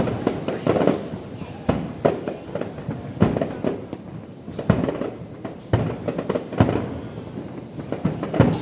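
Aerial fireworks display going off: irregular bangs and crackles about once or twice a second, each trailing off in an echo.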